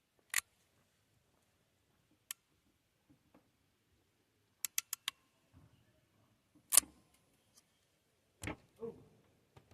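Scattered sharp clicks and taps from handling the small plastic and metal parts of an MC4 solar connector: single clicks, then a quick run of four, a louder click, and two duller knocks near the end.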